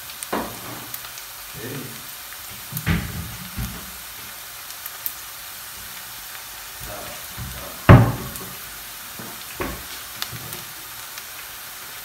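Sliced red onions sizzling in oil in a stainless steel frying pan, with a few sharp knocks, the loudest about eight seconds in.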